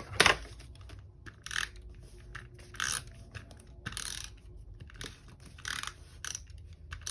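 Scissors snipping paper: about seven short cuts, roughly one a second, trimming a piece of paper ephemera.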